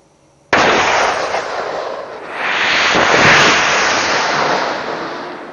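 A GasGun propellant charge confined in a perforated canister going off: a sudden blast about half a second in as the detonator and det cord fire, then the propellant burning rapidly with a loud rushing noise that dips, builds to a second, louder peak about three seconds in, and slowly dies away. The late build-up is the pressure rising in the progressively burning propellant.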